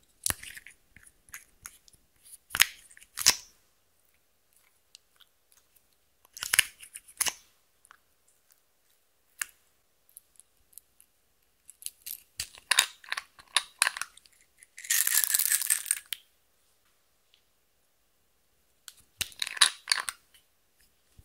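Small plastic makeup containers being opened and worked over a glass dish of clear slime: clusters of sharp clicks, crackles and crunches as the makeup is broken out, with a dense hiss lasting about a second roughly two-thirds of the way in.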